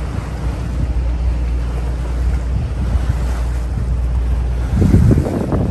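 Wind buffeting the microphone and water rushing past the hull of a sailboat under way, over a steady low rumble. A stronger surge of buffeting comes near the end.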